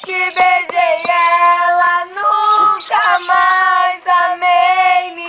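A woman singing a slow melody with long held notes and short breaks between phrases.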